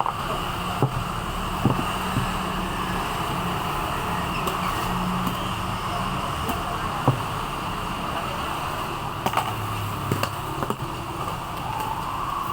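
Steady fan-like background hum and hiss, with a handful of short light clicks and taps scattered through, typical of handling the packaging of a phone replacement screen during unboxing.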